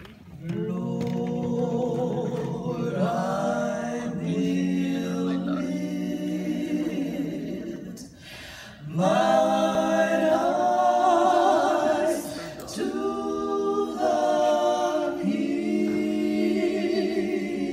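Four women singing a cappella in close harmony, holding long sustained chords. The phrases break briefly about eight seconds in, and the phrase after it is the loudest.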